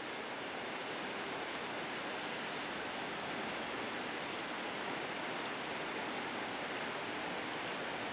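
Steady rush of flowing water in a mountain stream.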